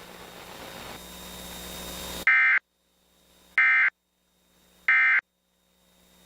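Emergency Alert System end-of-message data bursts: three identical short, buzzing digital tones about 1.3 seconds apart, the code that closes the alert. They come after a couple of seconds of steady hiss on the broadcast audio.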